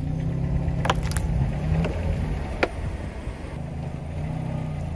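Car engine running slowly at low speed, a steady low hum, with a few sharp clicks about a second in and again near the middle.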